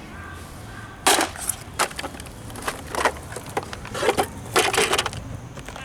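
Junk being smashed apart: from about a second in, a quick series of sharp cracks and crunches with splintering, as something hard is broken up by repeated blows.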